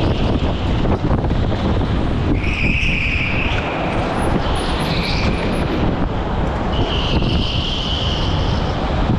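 Go-kart driven hard through corners, heard from the driver's seat: steady running and wind noise on the microphone, with tyres squealing several times through the turns.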